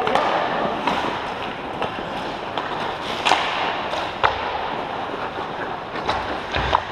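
Ice hockey play: skates scraping the ice under a steady wash of rink noise, broken by several sharp clacks of sticks and puck.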